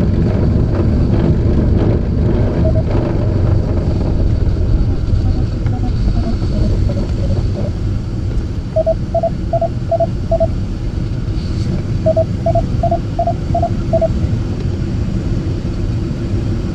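Steady rush of airflow and low rumble in a glider cockpit during an aerotow takeoff, the glider heavy with water ballast. About nine seconds in and again about twelve seconds in, there are runs of five quick, evenly spaced electronic beeps.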